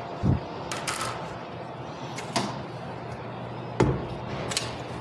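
Knocks and clunks of a KitchenAid Artisan tilt-head stand mixer being handled, a few sharp clicks and a low thump, with the loudest clunk near the end as the mixer head is lowered onto the bowl.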